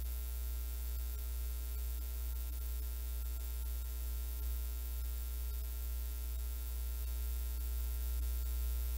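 Steady low electrical hum, unchanging, with faint steady tones above it.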